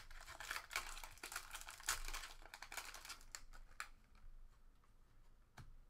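A trading-card pack's wrapper crinkling and crackling as it is torn open and pulled apart. In the second half it quietens to a few light clicks and rustles as the cards are handled.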